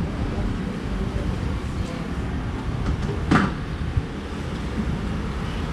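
Steady rumble of street traffic, with one short hiss a little over three seconds in.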